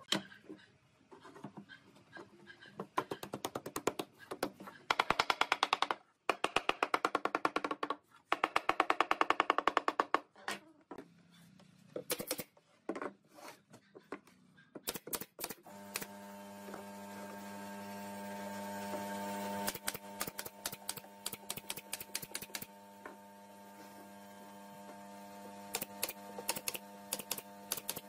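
Pneumatic nail gun firing into pine strips, single shots and rapid runs of sharp clicks. A steady hum joins about halfway through.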